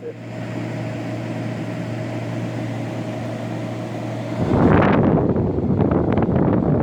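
Window air conditioner running: a steady hum with a constant low tone, then a louder rush of air from about four and a half seconds in.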